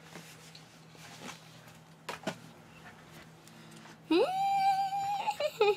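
A high-pitched voiced cry about four seconds in: it glides up, then holds one steady pitch for about a second, followed by a few short voice sounds. Before it there is only a faint steady hum.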